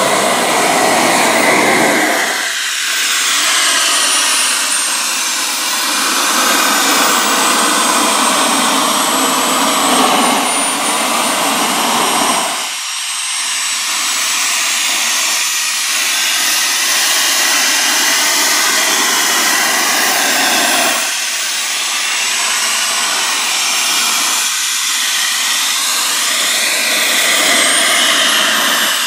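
Two Jet Central Super Eagle model turbojet engines of a large RC F-4 Phantom running while it taxis: a loud rushing jet noise with a high turbine whine that rises and falls as the throttle changes.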